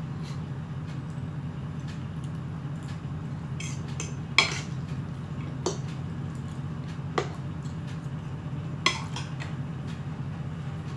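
Spoons and forks clinking against plates and bowls while eating: about five separate clinks, the loudest about four seconds in. A steady low hum runs underneath.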